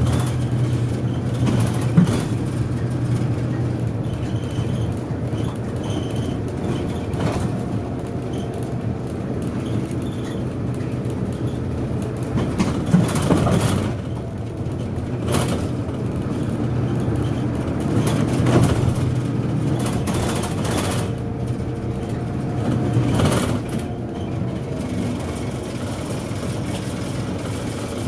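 Bus engine running and road noise heard from inside the cabin of a route bus on the move, with a sharp click about two seconds in and a few brief knocks and rattles later on.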